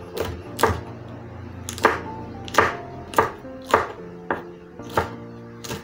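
Kitchen knife chopping long green chilies on a wooden cutting board: about ten sharp knocks of the blade on the board at a steady pace of less than two a second.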